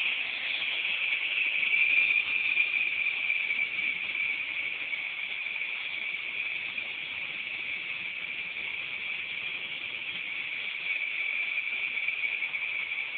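Small remote-control toy helicopter's electric motor and rotors running in flight: a steady high-pitched buzzing whine, a little louder about two seconds in.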